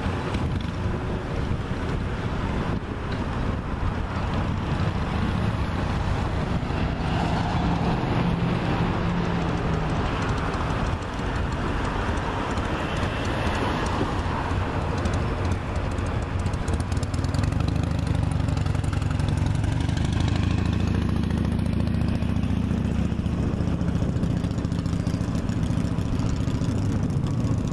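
Motor vehicle engines running over a steady outdoor rumble, with the engine note swelling twice, about a quarter of the way in and again past the middle.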